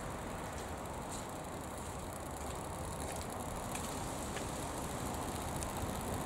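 Steady low rumble and hiss of background noise, with a few faint, isolated ticks.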